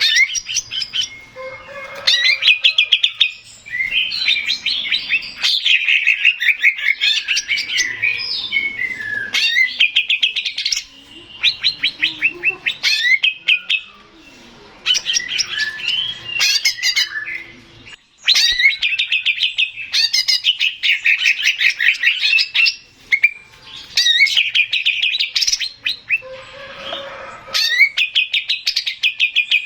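Male greater green leafbird (cucak ijo) singing loudly: fast, high chattering trills and warbled phrases in bursts of a few seconds, with short pauses between them.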